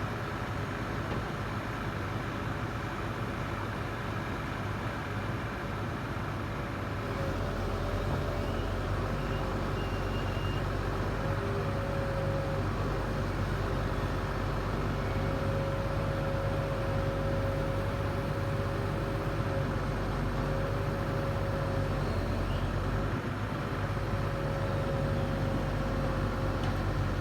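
A large engine running steadily with a thin whine over it, growing louder and deeper about seven seconds in.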